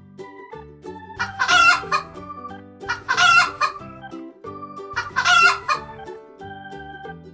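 A chicken calls three times, each call under a second long, over soft background music with held keyboard notes.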